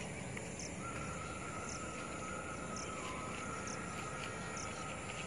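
Faint outdoor ambience: a short, high chirp repeats about once a second, and a steady thin whine sets in about a second in, over a low background hum.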